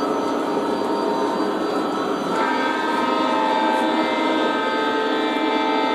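O gauge model Conrail diesel locomotives running on three-rail track, their onboard sound systems giving a steady diesel rumble with wheel noise. About two seconds in, a locomotive's electronic air horn sounds and is held steadily.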